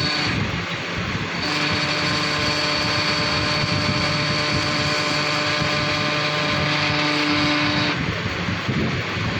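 A machine running with a steady whine over a constant mechanical hum. The whine comes in about one and a half seconds in and stops near the end.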